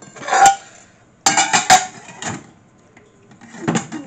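Dishes and cutlery being handled on a table: a sharp knock, then a cluster of clattering clinks and knocks about a second and a half in, with a few more knocks after.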